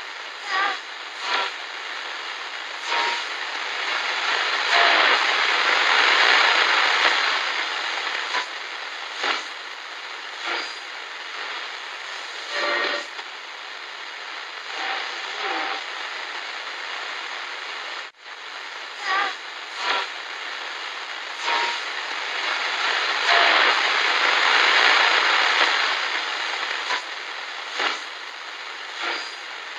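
Harsh, hissing noise with scattered clicks and short blips, swelling louder twice; it cuts out briefly about 18 seconds in and the same stretch of sound then plays again, a looped sound effect.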